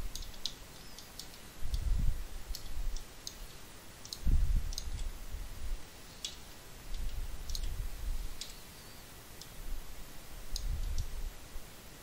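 Computer mouse clicking: scattered single clicks, roughly one every second, with four short low rumbles in between.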